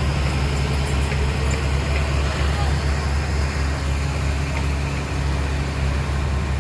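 Heavy diesel engine running steadily at one speed, with a deep, even hum.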